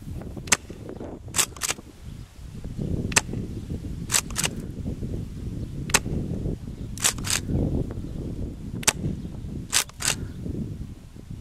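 Tokyo Marui M870 gas airsoft pump shotgun fired four times at a steady pace, about every three seconds, with the pump racked between shots as a quick pair of sharp clicks. Wind rumbles on the microphone throughout.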